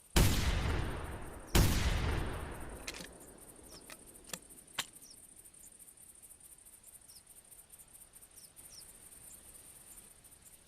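12-gauge side-by-side shotgun fired twice, both barrels about a second and a half apart, each shot echoing away over a second or so. A few sharp clicks follow, over a steady chirring of crickets.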